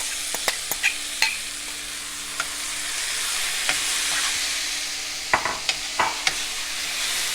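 Chopped tomatoes, onions and bell pepper sizzling in hot olive oil in a frying pan. A utensil stirs them, clicking and scraping against the pan now and then, with several clicks close together about five to six seconds in.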